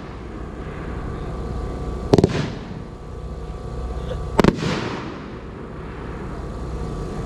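Two loud firework bangs about two seconds apart from a 9-shot 500-gram nine-on-a-board shell rack, each trailing off in a short echo.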